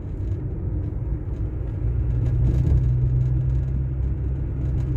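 Car engine and road noise heard from inside the cabin while driving: a steady low hum and rumble, whose engine note fades briefly about a second in and then comes back.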